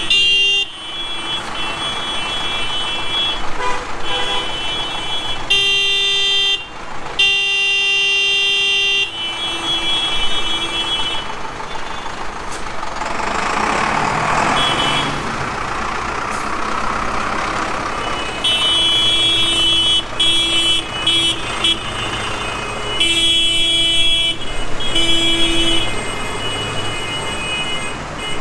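Horns honking in repeated long blasts over the running diesel engines of a column of tractors driving slowly past. Midway the horns pause while one tractor rumbles past close by, and the honking resumes after it.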